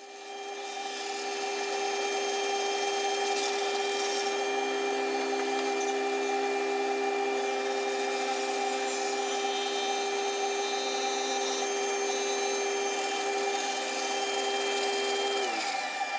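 Table saw running and cutting a long slot through an MDF sled base, a steady motor-and-blade hum with a hiss of cutting. The sound swells over the first couple of seconds, holds steady, and near the end the hum drops in pitch as the blade slows.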